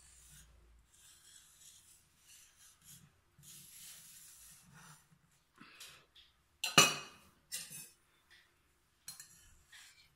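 A knife blade scraping around the inside rim of a stainless steel plate, loosening a steamed kinnathappam. It goes as soft intermittent rasping, with a couple of louder metallic scrapes about seven seconds in.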